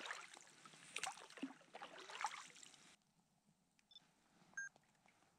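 DSLR camera shutter clicking a few times over a faint hiss. About three seconds in the sound drops to near silence, with a couple of faint short high chirps.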